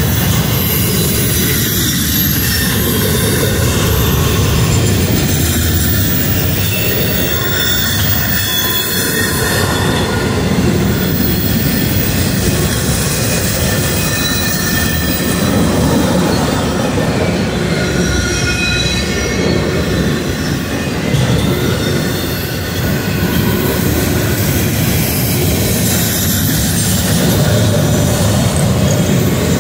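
Train cars rolling steadily past at close range, with wheels squealing on and off in high thin tones over the rumble.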